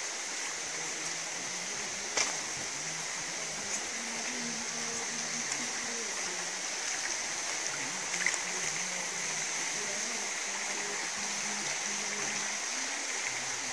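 Steady nature ambience: a high-pitched insect chorus droning without pause over the rush of running water, with one sharp click about two seconds in.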